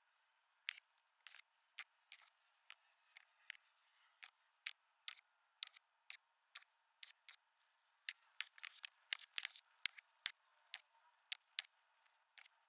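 Faint, irregular sharp clicks and taps of small steel skateboard bearings being handled and set down on a hard tabletop, a few a second. They come thickest a little past the middle, with a soft rustle behind them.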